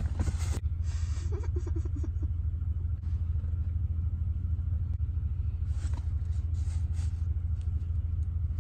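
Steady low rumble of a running car heard from inside its cabin.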